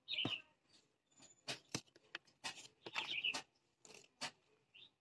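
Several short, sharp clicks and knocks as the rubber cell caps of a 12-volt motorcycle battery are pressed back into place by hand, sealing the cells after the acid refill. Short high bird chirps come between them, about a second apart near the start and again about three seconds in.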